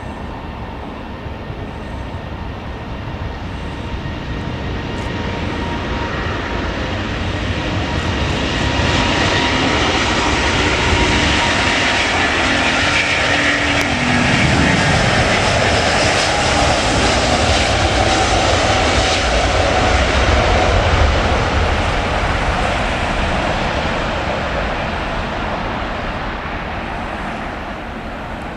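Airbus A350 airliner's Rolls-Royce Trent XWB engines at take-off power as it accelerates down the runway. The jet roar builds over several seconds and stays loud while the aircraft passes, with a tone sliding down in pitch. Near the end it fades as the aircraft moves away.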